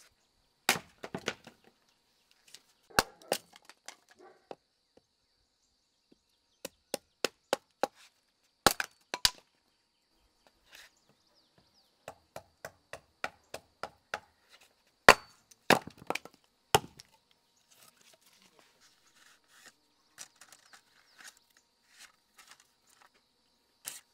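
Axe splitting a firewood log on a chopping block: a series of sharp wooden knocks and cracks at irregular intervals, some in quick pairs, with a run of lighter taps about a third of the way in. The strikes stop about two-thirds of the way through.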